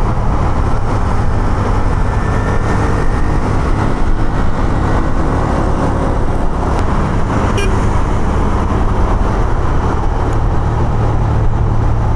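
Honda CB150F's single-cylinder four-stroke engine running steadily at cruising speed, mixed with wind and road noise from riding through traffic.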